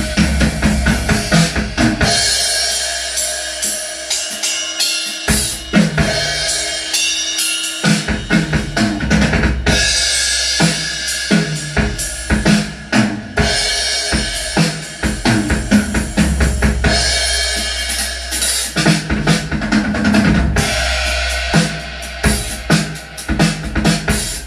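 Drum-heavy music with a strong bass line, played loud through a sound-test rig of eight speakers on one power amplifier: four Jackhammer woofers, two JBL subwoofers and two Crown horn tweeters. The low end thins out for a few seconds early on, then the full bass returns.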